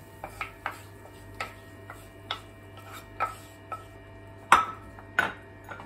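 Kitchen utensil tapping and scraping a non-stick frying pan as fried onion, garlic and green pepper are emptied into a bowl: a string of sharp, irregular clicks and knocks, with two louder knocks a little after the middle.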